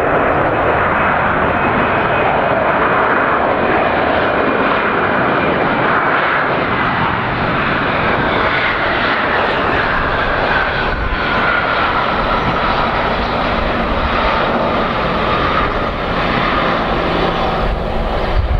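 Airbus A320-211 airliner's CFM56 jet engines running steadily as it rolls out along the runway after landing, with a whine that falls in pitch through the middle. A deeper rumble grows near the end as the aircraft draws closer.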